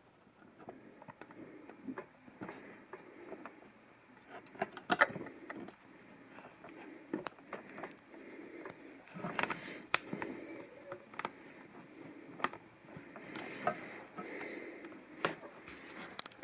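LEGO plastic pieces being handled and pressed together: scattered light clicks and rustling, with a few sharper snaps, the loudest about five and ten seconds in.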